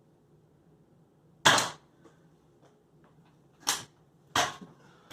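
Three shots from a Nerf blaster, each a short sharp burst of air: one about a second and a half in, then two closer together near the end.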